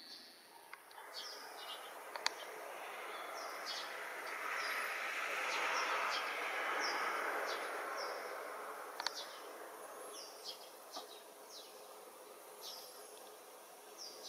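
Small birds chirping, short high falling notes repeated every second or so, over a broad rushing noise that swells and fades midway. Two sharp clicks stand out, one early and one about two-thirds through.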